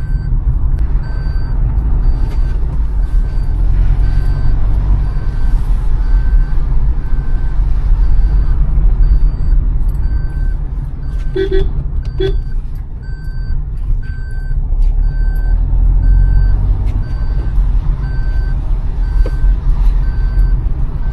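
Car engine and tyres rumbling low over a rough, stony road, heard inside the car. An electronic beep repeats about once a second, and two short horn toots sound a little past halfway.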